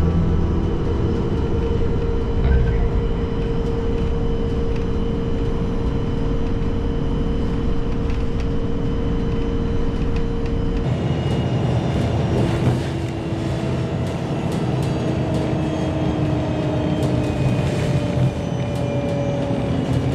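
Interior of a moving bus at road speed: steady engine and road noise with a steady whine. About eleven seconds in, the whine shifts to a new pitch and then slowly falls.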